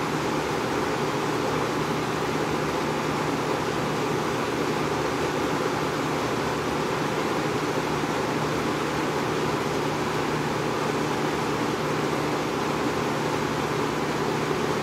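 1983 Kmart 20-inch box fan, model K-223, running steadily: an even rush of air from the blades with a low motor hum underneath.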